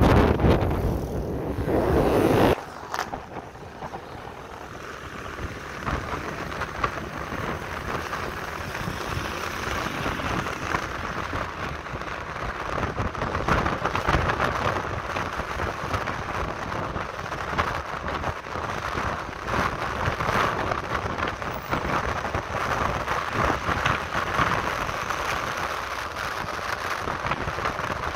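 Wind rushing over the microphone of a moving motorcycle, with heavy low buffeting for the first two and a half seconds, then a steady, crackly rushing hiss.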